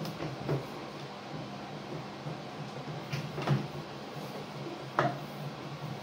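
Cloth wiping the front of a stainless steel microwave, with a few short knocks and clicks of the hand against the casing and door, the sharpest about five seconds in, over a steady low hum.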